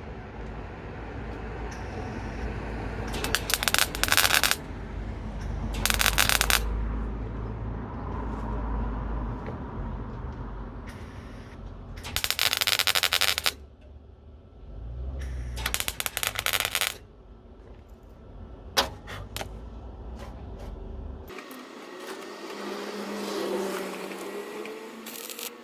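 Welder tack-welding a thin steel car body panel: four arc bursts of about a second each, crackling, with a few short zaps after, over a steady low hum that stops abruptly near the end.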